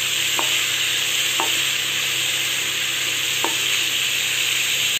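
Chopped carrot, capsicum and onion sizzling in hot oil in an aluminium kadai while a wooden spatula stirs them, a steady frying hiss. Three light knocks of the spatula against the pan stand out, about a second apart early on and again near the end.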